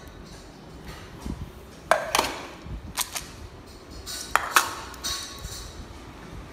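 Stainless steel dog food bowls clinking and knocking on a tiled floor: several sharp metallic clinks with a short ring, in pairs about two, three and four and a half seconds in.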